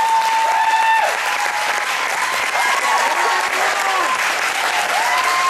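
Audience applauding, with voices calling out over the clapping.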